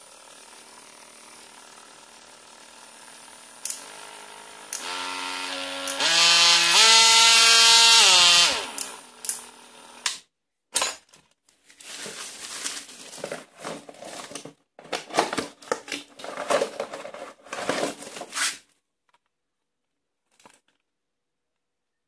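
Vityaz VMR-12 cordless oscillating multi-tool motor running. Its whine steps up in speed several times to a loud peak, then winds down and stops about ten seconds in. A stretch of irregular rustling and handling noise follows.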